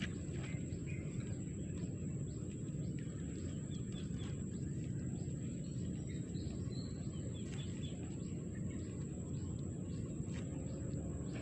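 Outdoor background: a steady low rumble with faint, short bird chirps every so often and a few small soft clicks.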